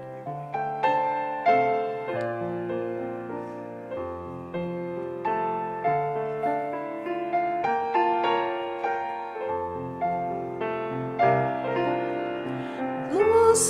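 Piano playing a slow, gentle hymn: struck notes that die away over held bass notes. A voice starts singing just at the end.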